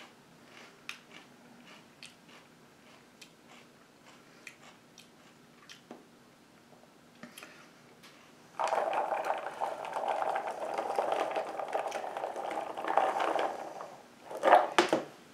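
Raw celery being chewed, a loud crunching that starts about halfway through and lasts about five seconds, after faint clicks. A short, loud burst of the same kind of sound comes near the end.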